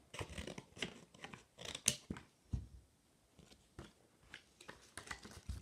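Scissors snipping and cutting through a toy car's plastic blister packaging and card: an irregular run of sharp snips and plastic crackles, the loudest about two seconds in.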